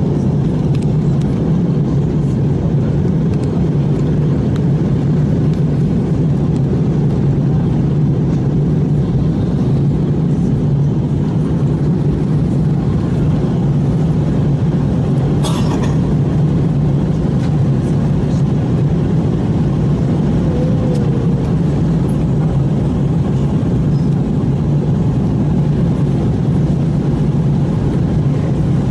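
Steady airliner cabin noise in flight: the drone of jet engines and rushing air, strongest low down. A single sharp click comes about halfway through.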